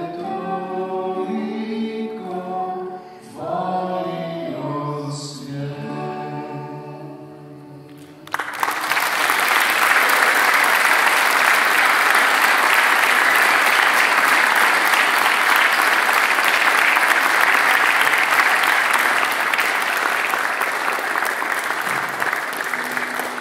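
Mixed choir singing the closing phrases of a song, ending on a held chord about eight seconds in. Applause then breaks out suddenly from the audience and the choir and goes on steadily, tapering off near the end.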